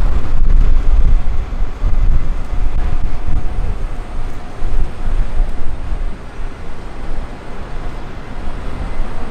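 Outdoor city street ambience with a loud, uneven low rumble, easing a little after about six seconds.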